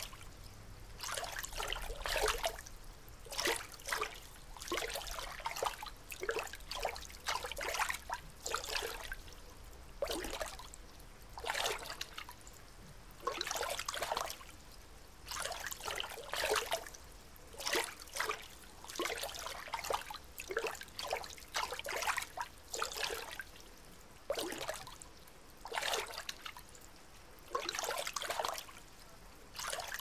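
Water lapping and trickling in irregular small splashes, roughly one a second, with brief quieter gaps between them.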